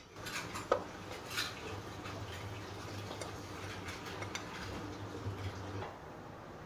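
A metal spoon scraping and tapping a plate as ground spices are pushed off it into a food processor bowl: faint scraping with a few light clinks.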